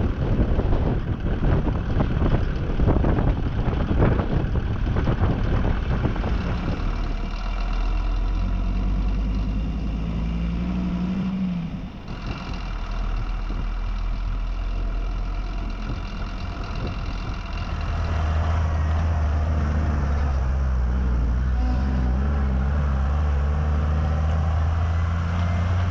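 An ARO 4x4 off-road vehicle's engine running as it drives, with a rapid clatter of knocks and rattles over the first several seconds. Then a steady engine drone dips briefly midway and settles into a louder, lower note for the last third.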